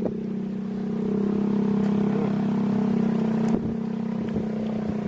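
A small engine running steadily, its hum swelling a little in the middle, with a few faint clicks over it.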